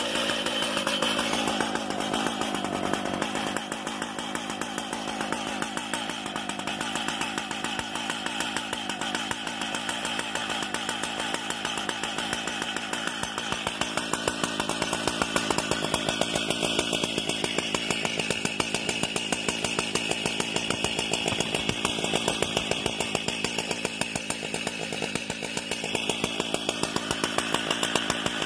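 Stihl MS 880's big two-stroke chainsaw engine idling steadily with the chain still, warming up after a cold start.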